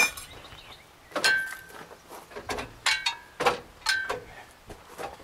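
Irregular sharp metal clanks and clinks, some ringing briefly, from an engine hoist and its chain as a hanging GM 4.3 L V6 is worked into a van's engine bay.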